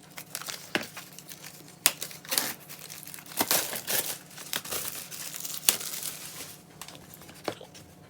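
Album packaging and paper inclusions crinkling and rustling as they are handled, in irregular bursts with a few sharp clicks.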